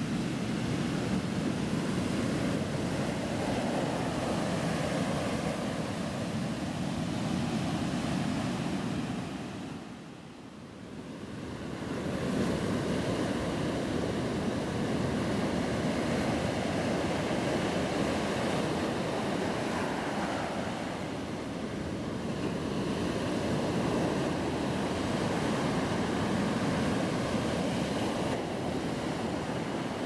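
Small sea waves washing up over a sandy, pebbly beach and drawing back, a steady rushing wash. It falls away briefly about a third of the way in, then swells back.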